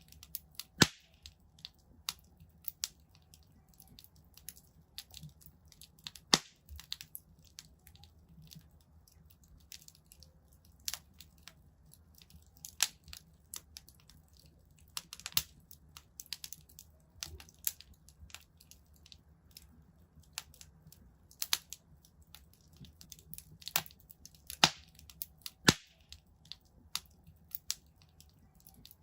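Wood fire crackling in a fireplace: irregular sharp pops and snaps, a few of them louder, over a low steady hiss.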